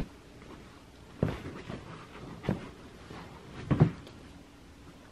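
Four or five soft thumps about a second apart, from slide-on winter boots being put on and stepped in on the floor.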